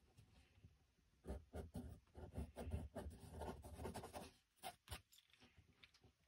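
Pencil scratching on sketchbook paper in quick short strokes, writing letters, from about a second in until just past four seconds. A few light taps follow.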